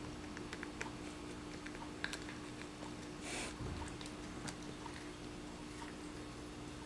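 A cat chewing on a treat stick held in the hand, heard as faint, irregular crunching clicks. A brief rustle comes about three seconds in, over a steady low hum.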